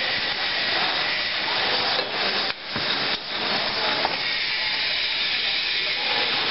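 Steady hissing noise of a running conveyor and packaging line, dipping briefly twice a couple of seconds in.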